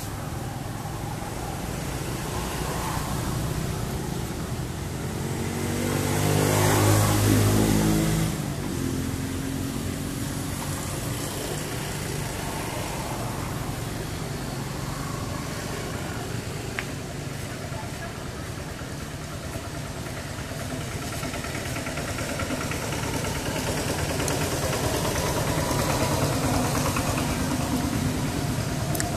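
An engine running, swelling to its loudest about seven seconds in and stopping abruptly about a second later, over a steady background hum.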